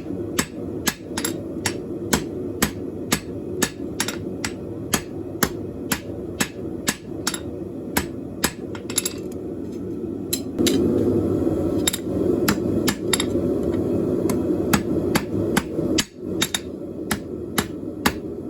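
Hand hammer striking steel on an anvil in a steady rhythm, about two or three blows a second, over a steady low hum.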